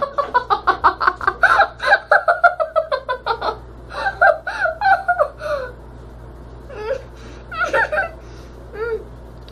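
Girls laughing in quick rapid bursts for about three and a half seconds, then a few more laughs and short high vocal sounds, growing sparser toward the end.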